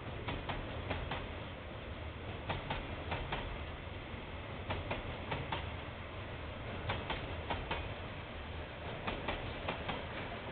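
Freight train rolling past, its wheels clicking over the rail joints in groups of clicks every second or two over a steady low rumble.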